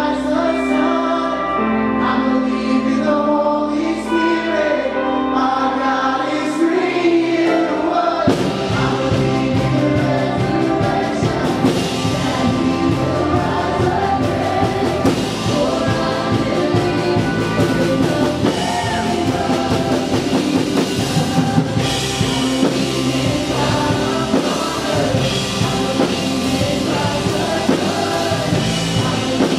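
Live worship music: a band with voices singing together. Held keyboard chords carry the singing at first, then drums and the full band come in about eight seconds in and play on.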